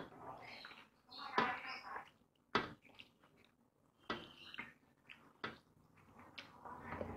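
Eating by hand: fingers mixing biryani rice on a steel plate, along with chewing and lip-smacking, heard as irregular clicks and smacks. The sharpest come about one and a half and two and a half seconds in.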